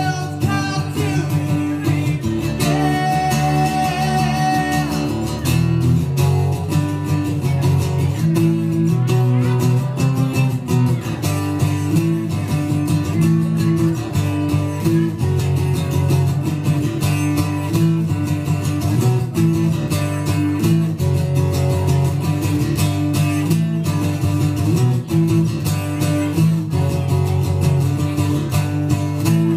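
Cutaway acoustic guitar strummed in a steady rhythm, played live through the PA, with a voice singing over it at times.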